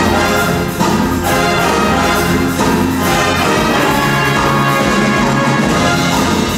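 Loud, steady instrumental music led by brass instruments.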